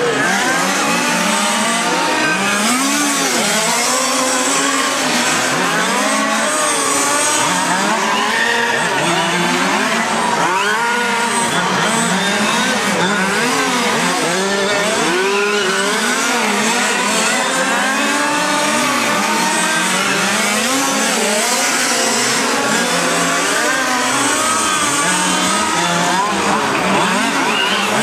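Several radio-controlled model race cars lapping together, their small engines revving up and easing off continually, a dense buzzing of many overlapping rising and falling pitches.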